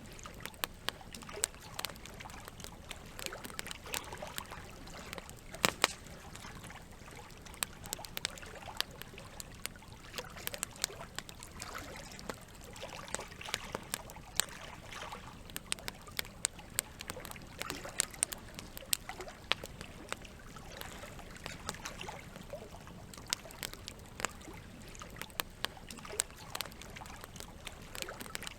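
Campfire crackling with frequent irregular pops, one loud snap about six seconds in, over steady trickling water.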